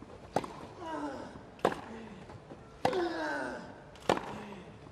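Tennis rally on grass: rackets strike the ball four times, about every 1.2 s, alternating between the two players. After the first and third strikes comes a player's long grunt that falls in pitch.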